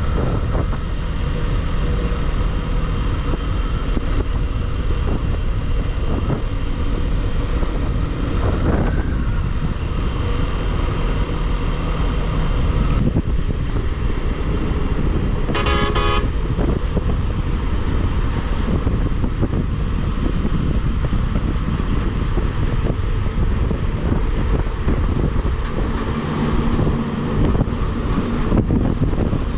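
Motorcycle riding at road speed: steady engine and road noise with wind on the microphone, and a vehicle horn sounding once for about a second near the middle.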